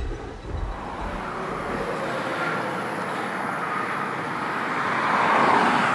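A steady rushing noise that swells to its loudest about five seconds in, then eases slightly. A low rumble fades out over the first two seconds.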